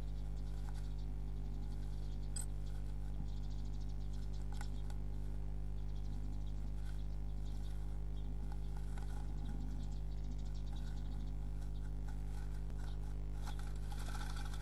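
Steady low electrical hum, with faint scratches and light ticks from a tit moving nesting material inside a nest box, and a short denser rustle near the end.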